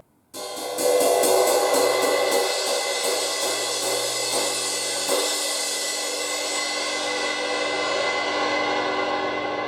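Zildjian 20-inch crash ride cymbal struck with a stick about four times a second, building a bright, washy shimmer. About five seconds in comes a harder crash, and the cymbal is left ringing, decaying slowly.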